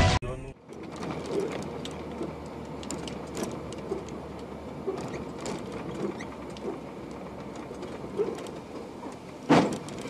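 Road noise inside a moving truck's cab, with scattered rattles and clicks. About nine and a half seconds in there is a short loud bang as the truck rear-ends the car ahead. The first half-second holds the end of a loud intro sound effect, which cuts off abruptly.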